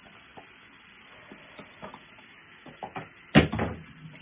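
Bathroom tap running into the sink with a steady hiss and small splashes of water, and one sudden louder knock about three seconds in.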